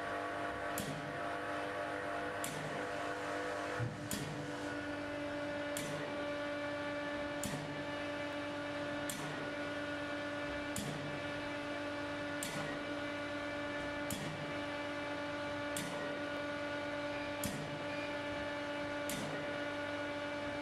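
Steady machine hum made of several held tones, with a faint tick repeating at a very even pace, about once every second and a half.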